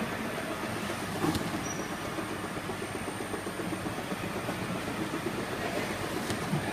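Steel slat-chain conveyor of a jerrycan filling and labeling line running with a steady mechanical clatter. There is a sharp click about a second in and a fainter one near the end.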